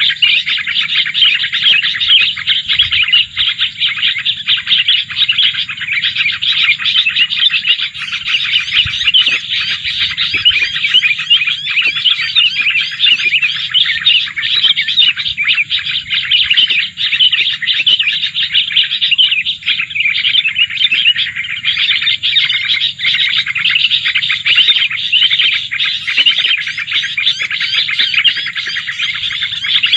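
Dense, continuous chirping and twittering of small songbirds, many short rapid notes with no break.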